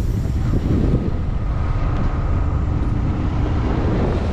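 A motorcycle riding along at a steady speed: heavy wind rumble on the camera microphone, with the bike's engine running evenly underneath as a faint steady tone.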